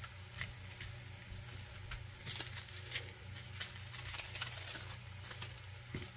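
Small plastic bags of diamond-painting drills being handled and spread out on a table: quiet, irregular clicks and light crinkling.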